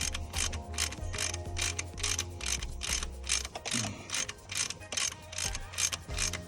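Hand ratchet wrench clicking in a steady rhythm of about five clicks a second as a fastener is turned, with a low hum underneath that drops out a little past halfway.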